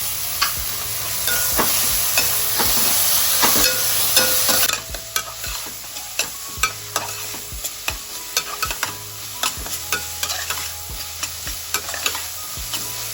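Onion and tomato sizzling in hot oil in a pan while being stirred, a spoon clicking and scraping against the pan in quick irregular strokes. The sizzle is loudest for the first four or five seconds, then drops suddenly, leaving mostly the stirring clicks over a softer fry.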